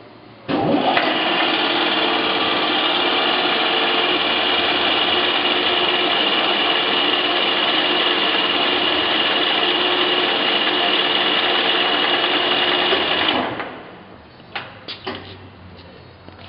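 Howa Sangyo Model 1000 engine lathe's geared headstock starting up about half a second in and running steadily with a gear whine. It shuts off and winds down about 13 seconds in, followed by a few sharp clicks from its levers near the end.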